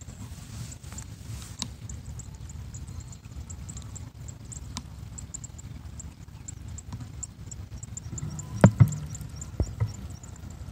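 Wind rumbling on a phone's microphone, with faint high ticks repeating several times a second. Two sharp knocks of the phone being handled come a little over eight seconds in, with a smaller one after.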